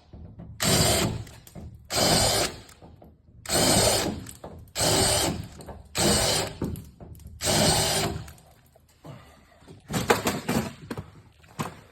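Power drill spinning a step bit in six short bursts of about a second each, deburring drilled holes in the van door's sheet metal. Lighter clicks and rattles follow near the end.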